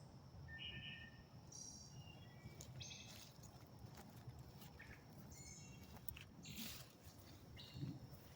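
Faint birds chirping in short high calls, scattered through, with a brief rustle about six and a half seconds in.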